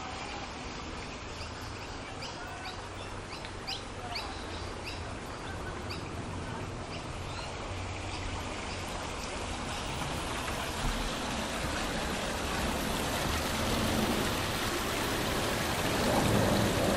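Small birds chirping in quick, repeated short calls, then the steady rush of water running over rocks in a small garden stream, growing louder and loudest near the end.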